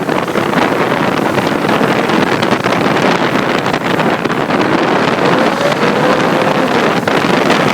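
Ferrari 458 Italia's 4.5-litre V8 running through an IPE exhaust, heard as a dense rushing roar mixed with wind buffeting the microphone. A faint rising engine note comes in about halfway through.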